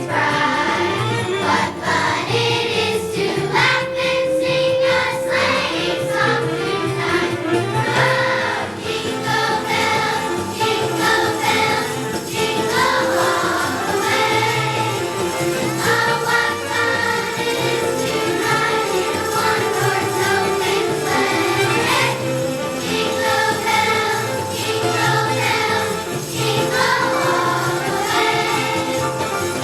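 Children's choir singing a Christmas song over a musical accompaniment with jingle bells.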